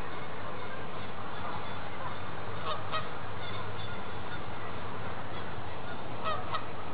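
Geese honking: two quick pairs of short calls, one about three seconds in and one near the end, over steady background noise.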